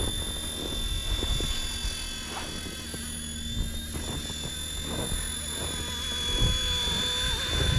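Battery-powered mini RC helicopter in flight, its electric motor and rotors giving a steady high whine.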